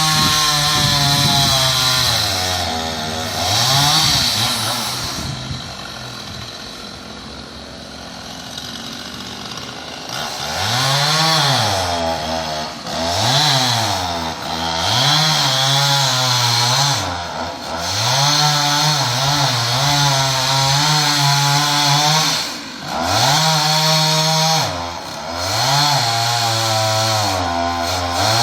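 Chainsaw cutting a pine tree, its engine revved up and let back down over and over. It runs quieter and lower for a few seconds about a fifth of the way in.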